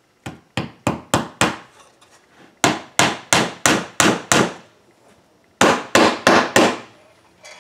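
A hammer tapping small nails into the softwood pieces of a birdhouse kit. There are three runs of quick strikes, about three a second, each with a short ring.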